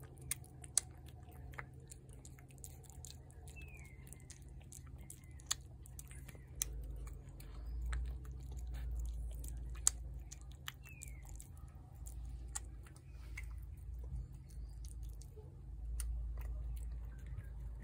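A cat chewing and eating wet, shredded cat food from a plate, with irregular wet smacking clicks of its jaws. A low rumble swells twice in the background.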